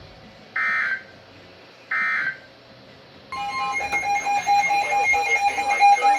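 Emergency Alert System end-of-message data bursts: short, raspy digital squawks, the second and third of the three, about a second and a half apart, marking the end of the weather alert. About three seconds in, a loud steady alert tone comes in over a busier, fluctuating sound.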